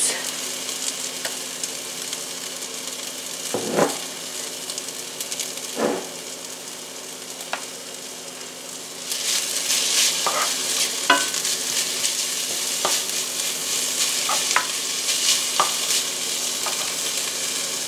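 Chopped onion, spinach and minced garlic sizzling in a ceramic nonstick skillet; the sizzle gets louder about nine seconds in. In the second half a wooden spoon stirs the mix, with small scrapes and taps against the pan.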